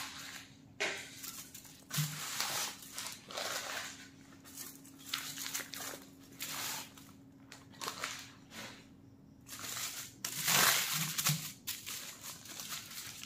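Aluminium foil and paper wrapping crinkling and tearing in irregular bursts as a long wrapped roll is unwrapped by hand. The rustling is loudest about ten seconds in.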